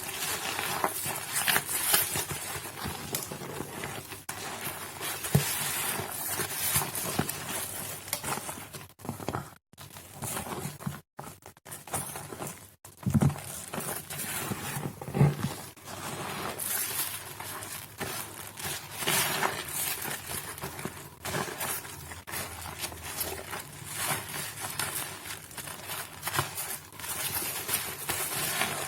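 Soaked pink and white Nuvo bar soap being squished and crushed by hand: a wet, crackly squelching full of small pops, going on in uneven bursts with a few split-second breaks.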